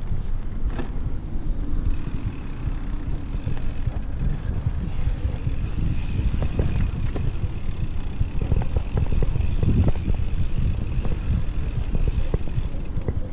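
Mountain bike ridden down a dirt singletrack: a steady rumble of wind and tyres on the microphone, with the bike knocking and rattling over bumps, the rattles coming thicker in the second half.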